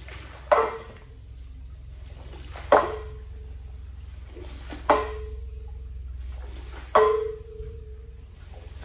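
Floor squeegee working water out of a soaked area rug: four sharp slaps, about one every two seconds, as the blade comes down on the wet rug for each stroke, each followed by a brief ringing tone. A steady low hum runs underneath.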